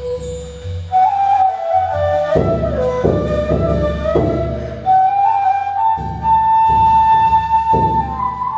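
Ney, an end-blown flute, playing a slow melody of long held notes that step up about a second in and climb higher about five seconds in, holding the top note before stepping back down. Under it, a drum is struck with a soft mallet in deep, widely spaced strokes.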